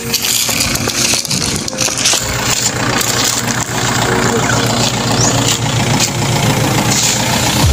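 An engine running steadily.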